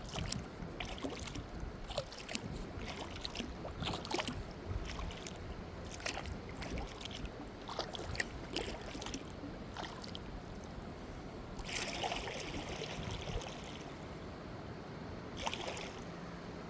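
Kayak paddle dipping and pulling through calm water, with irregular drips and small splashes off the blades. There are two longer, louder splashes, one about twelve seconds in and one near the end.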